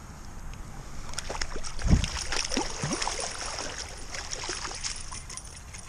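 Water splashing and sloshing in a stream, with scattered crackling splashes and one heavy splash about two seconds in.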